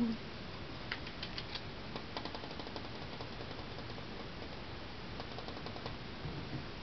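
Kittens playing on a hardwood floor: light, quick clicks and taps in a few short runs, about a second in, around two seconds in and again past five seconds, over a steady low hiss.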